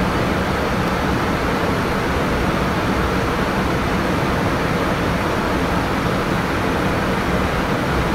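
Steady rushing noise of a Boeing 787 flight deck in cruise, even throughout.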